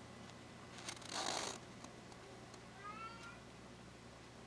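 A domestic cat meows faintly once, a short call rising in pitch, about three seconds in. A brief rustle, louder than the meow, comes about a second in.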